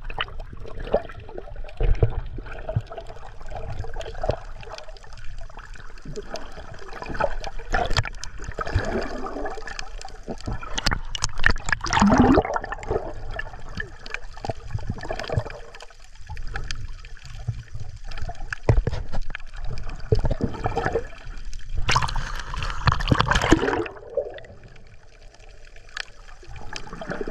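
Water gurgling, sloshing and splashing close to the microphone, irregular and full of small knocks, with a louder rush of splashing lasting about two seconds near the end.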